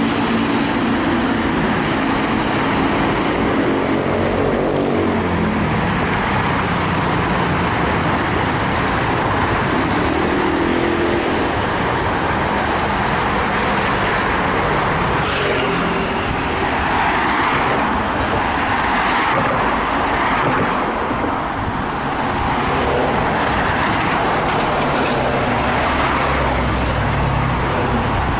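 Road traffic going by: a vehicle's engine hums at a steady pitch for the first few seconds and then fades, under a continuous wash of tyre and engine noise from passing vehicles.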